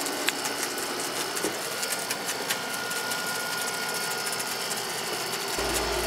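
Chicken wings sizzling on a gas grill: a steady crackle of small pops over a hiss. A low hum starts abruptly near the end.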